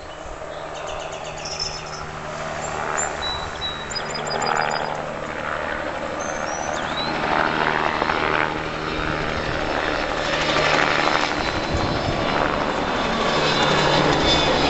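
Engine drone of a low-flying spray aircraft, growing steadily louder as it approaches.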